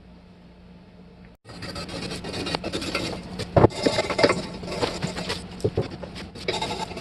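Rough scraping and rubbing with irregular sharp knocks, starting abruptly about a second and a half in after a stretch of low hum: hand work scraping at a surface.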